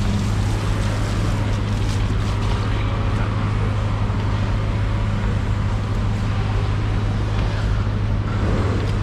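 A steady low mechanical hum under a constant hiss, unchanging throughout.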